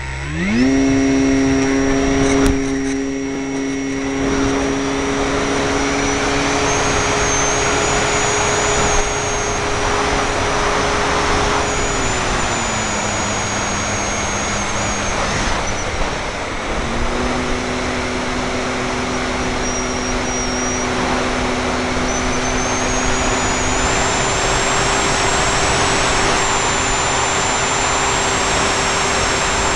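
Electric motor and propeller of a Parkzone F4F Wildcat RC plane spinning up sharply about half a second in for takeoff, then a steady whine with rushing air over the onboard camera. The pitch drops as the throttle is eased back about halfway through and rises again a few seconds later.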